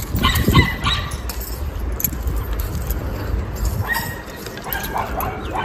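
Short animal calls, a few at the start and a few more near the end, over a steady low rumble.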